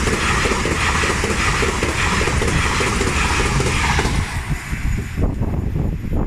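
LNER London to Edinburgh express train passing at speed: a loud, steady rushing noise that dies away about four seconds in, leaving a low, uneven rumble.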